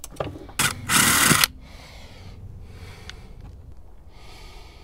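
Ryobi cordless power driver running in one short burst of about half a second, driving a bolt whose nut is held by vice grips on the far side. A light knock comes just before it, then only faint low background noise.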